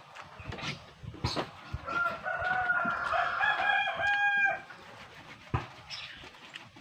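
A rooster crowing once, one long call of about two and a half seconds that starts about two seconds in and steps up in pitch partway through. Faint clicks and knocks come before and after it.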